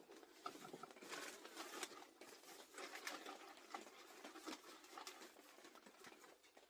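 Near silence with faint, scattered light ticks and rustles.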